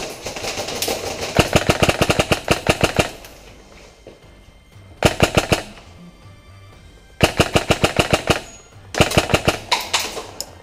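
Airsoft guns firing rapid full-auto bursts, four volleys of fast, evenly spaced shots with short pauses between, the longest lasting about two seconds.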